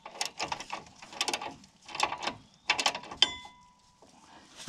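Ratchet wrench clicking in about four short bursts as a bolt and washer are run down to seat the planter gauge wheel on its arm, with a brief metallic ring a little past three seconds.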